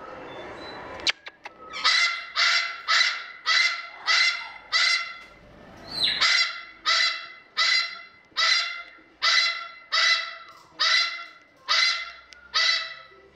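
A parrot giving loud, harsh, honking calls over and over, about two a second, with a short break about halfway. A second of rustling noise comes before the calls begin.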